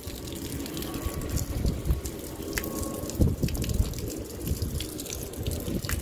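Water running from a garden hose pipe onto potted plants, with scattered small splashes.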